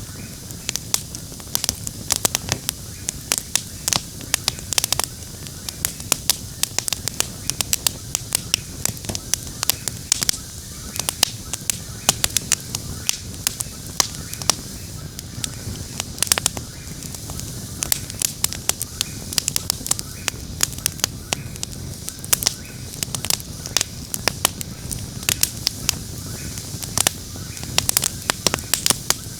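Wood campfire crackling, with frequent sharp, irregular snaps and pops over a low steady rumble of the flames.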